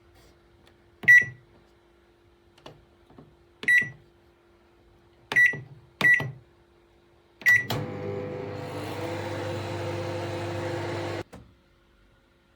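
Samsung MS23K3513AK solo microwave beeping five times as its buttons are pressed, then starting up and running with a steady hum for nearly four seconds before cutting off suddenly.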